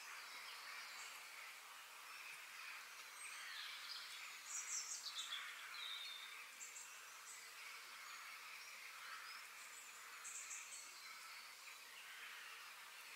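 Faint nature ambience: birds chirping and calling over a steady hiss, with a cluster of quick chirps and falling calls about four to five seconds in and another short run of chirps near ten seconds.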